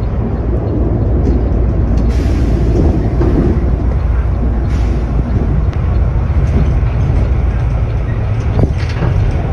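Steady low rumble of a city bus's engine and tyres heard from inside the moving bus, with a few brief clicks.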